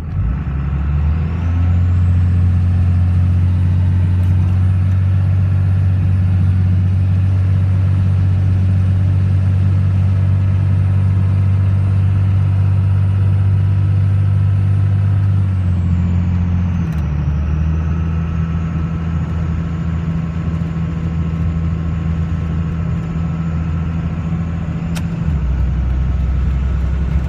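1999 Dodge Cummins 24-valve turbo diesel accelerating, its turbocharger whistling through a BHAF open air filter. The high whistle climbs steeply over the first two seconds and holds. About sixteen seconds in it drops in pitch along with the engine, then settles a little lower.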